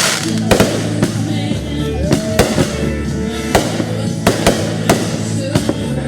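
Fireworks going off in a quick, irregular series of about ten sharp bangs over loud music with a steady beat.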